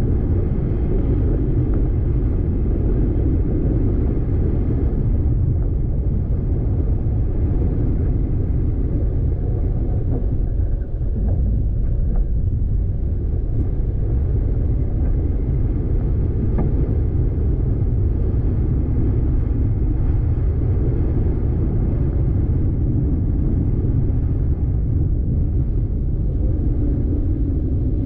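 Car driving on a dirt road: a steady low rumble of tyres and engine.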